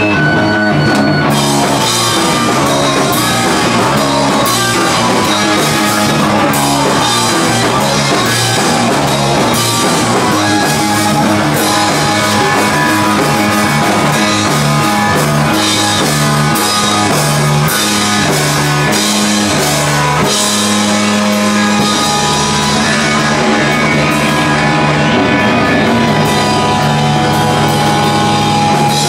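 Live rock band playing loud: electric guitar, bass and drum kit, with drum and cymbal hits running through the music.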